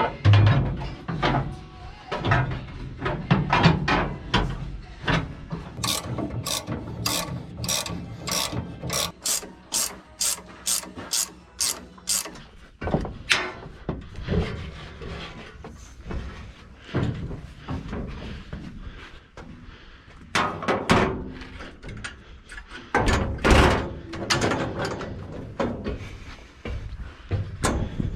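Hand ratchet wrench clicking in a steady run, about three clicks a second, for several seconds near the middle, amid irregular metallic clanks and knocks of tools and parts being worked on.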